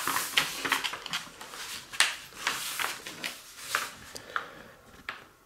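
Large printed paper instruction sheet rustling and crinkling as hands unfold it and smooth it flat, a series of crisp rustles that die away near the end.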